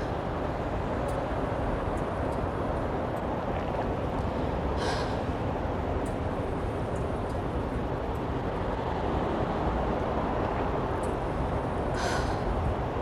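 A runner's breathing: two short, sharp breaths, one about five seconds in and one near the end, over a steady rushing background noise.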